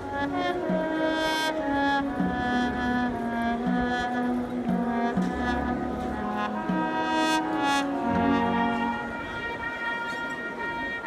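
Brass marching band playing a funeral march: held brass chords over a stepping bass line. About nine seconds in the low parts drop out, leaving high held notes.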